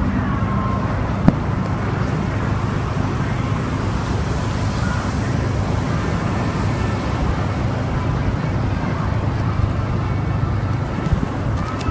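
Ford Edge crossover's engine and exhaust running at low speed, heard from just behind the tailpipes, with steady road and wind noise and a single sharp click about a second in.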